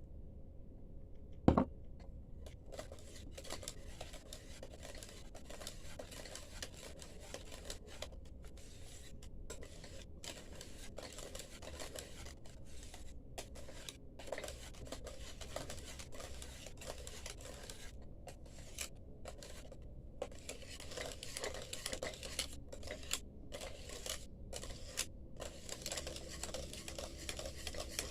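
A utensil stirring and scraping against a pot as lemon juice is mixed into hot milk thickened to a cream, with one sharp knock about a second and a half in.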